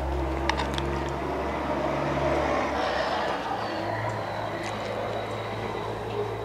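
A motor vehicle's engine running, its low hum shifting pitch and swelling about two to three seconds in, then easing off. A spoon clinks lightly against a clay bowl near the start.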